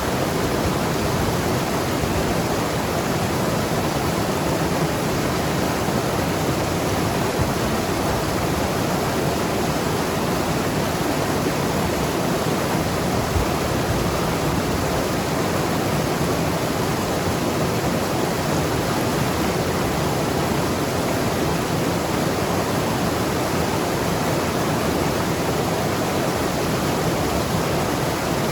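Mountain river rushing and gurgling over rocks, a steady dense water sound with no breaks.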